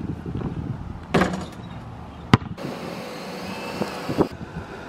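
Sharp hits of a basketball during outdoor shooting on an asphalt court: three separate impacts, about a second in, halfway through and near the end.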